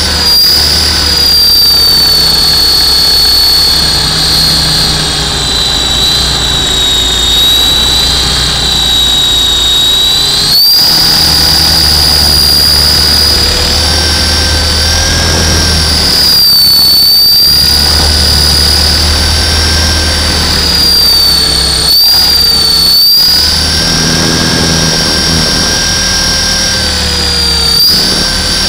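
Hughes 300 scale RC helicopter's motor and rotor heard close up from its onboard camera: a loud, high whine that sags and then jumps back up in pitch several times as the throttle changes, over a low, pulsing rotor rumble.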